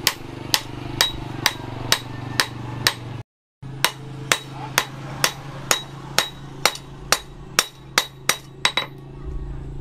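Hand hammer striking a red-hot steel axe blank, cut from a tractor plough disc, on a steel-post anvil: sharp, ringing blows in a steady rhythm of about two a second, with a brief break a little after three seconds in.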